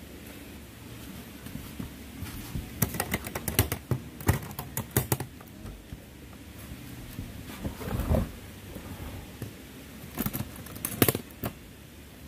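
Metal clicks and clacks of an aluminium Backcountry storage box's toggle latches and lid being worked open, in two quick clusters, with a dull thump about eight seconds in.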